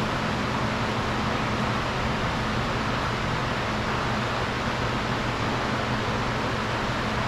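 Steady, unchanging noise with a low hum underneath, like a machine running continuously. No distinct knocks or clicks stand out.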